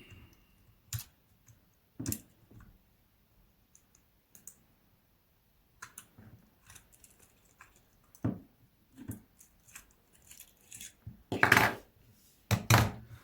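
Scattered clicks and knocks of small tools and parts while a Samsung Galaxy S22 Ultra phone is taken apart to lift out its motherboard. They come sparsely at first, then more often, with the two loudest knocks near the end.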